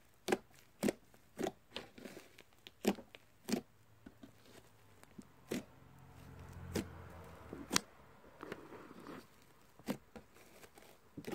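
Slime being handled and pressed, giving sharp, irregular clicks and pops about one to two a second.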